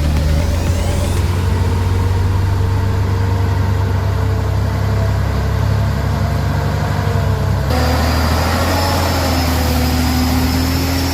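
Heavy off-road truck engine running steadily, a low rumble with its pitch drifting slightly. About eight seconds in the sound changes abruptly to another engine running at a slightly higher pitch.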